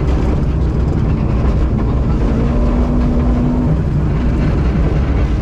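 Rally car engine running hard on a gravel road, with heavy rumble and tyre-on-gravel noise, heard from inside the cabin. The engine note rises gradually, then falls away a little past halfway.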